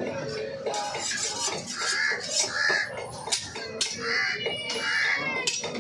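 A large knife chopping fish fillets into cubes on a wooden block: a few sharp chops, at the start and again in the second half. Crows caw four times in between, over a background of market voices.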